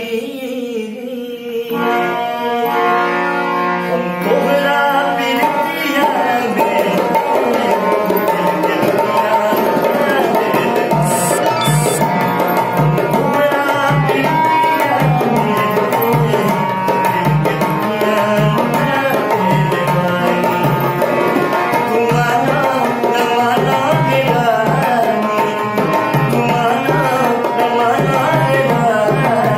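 A harmonium plays held chords, and about six seconds in a dholak drum joins with a steady beat. A man sings along to the harmonium.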